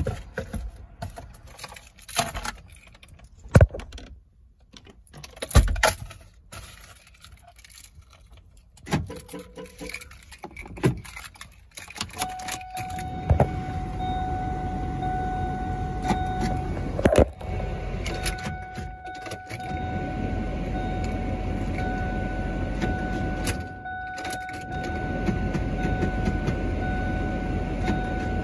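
Car keys jangling and clicking as they are handled, in scattered bursts. About twelve seconds in, a steady low hum with a constant high whine sets in and holds.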